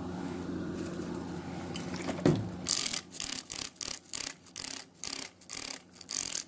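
Sandpaper on a sanding block wet sanding a run out of a car's clear coat, in quick back-and-forth strokes about three a second, starting about two and a half seconds in. A steady low hum lies under the first couple of seconds.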